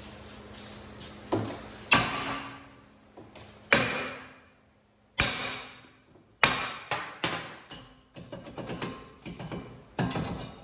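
Hammer striking a rust-seized brake rotor to break it loose from the hub: a series of irregularly spaced sharp metal strikes, each ringing briefly.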